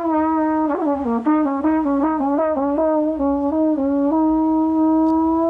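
A single brass instrument playing a quick run of separate notes, then holding one long steady note from about four seconds in.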